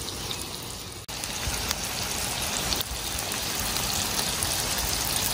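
Beef slider patties and diced onions sizzling on a Blackstone flat-top griddle: a steady crackling hiss that drops out briefly about a second in.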